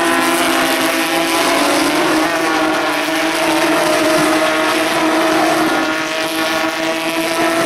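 A pack of Porsche 911 GT3 Cup race cars running at high revs on track, their flat-six engine notes overlapping in a steady, loud mix as the cars pass and pull away.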